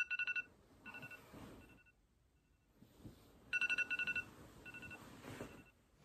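Phone alarm ringing: quick runs of rapid, high-pitched beeps, loud right at the start and again about three and a half seconds in, with fainter echoes of the pattern between. Bedding rustles as someone sits up in bed.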